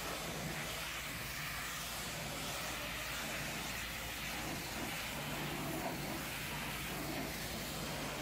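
High-pressure hot-water jet hissing steadily as it sprays against the minibus's painted metal side and windows. A low steady hum sits underneath and gets a little stronger about five seconds in.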